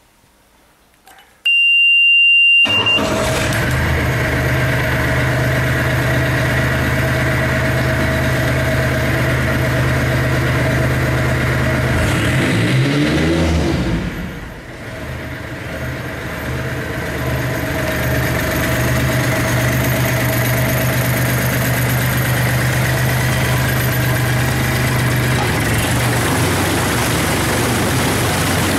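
A steady high beep sounds for about a second. Then a Yanmar D40 diesel outboard starts and runs steadily, its propeller churning the water of a test tank. Near the middle the running sound wavers and dips briefly, then settles back.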